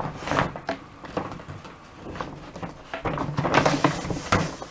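Rustling and scraping of a holographic foil gift bag as a cardboard laptop box is slid out of it, with a few knocks of the box against the table.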